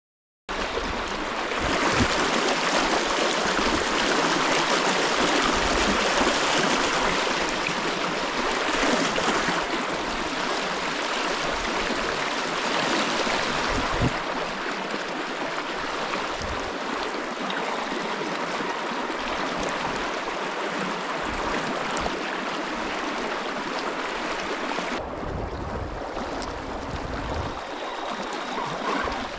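Steady rush of river water flowing, with a few brief low bumps; the sound turns duller about 25 seconds in.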